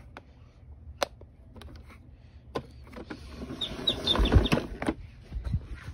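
Plastic toy pieces of a toy recycling garbage truck and its bin being handled: scattered sharp clicks and knocks, then a loud scuffling rustle a little past three seconds in, with a few short high chirps about halfway through it.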